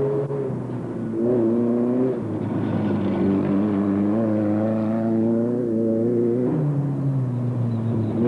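Off-road race car engine accelerating, its pitch climbing for several seconds, then dropping sharply about six and a half seconds in.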